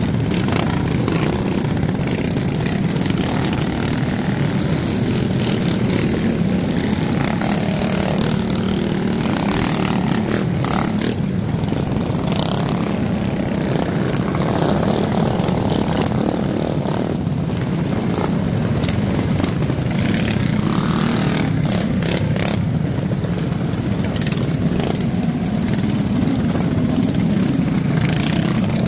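Gas mini-bike engines running steadily during a group ride, with a continuous low engine drone throughout.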